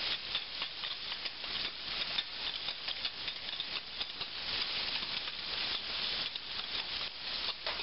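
Wire whisk rapidly ticking and scraping against a stainless steel saucepan as flour is whisked into hot melted butter and peanut oil to make a roux, over a light sizzle of the frying fat.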